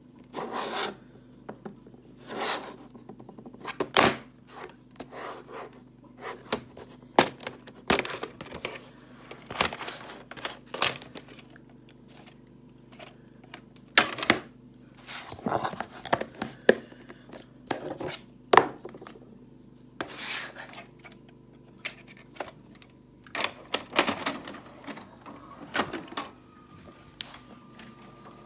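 Irregular plastic clicks, rattles and knocks from a VHS cassette and its plastic case being handled, over a steady low hum; a faint steady high tone comes in near the end.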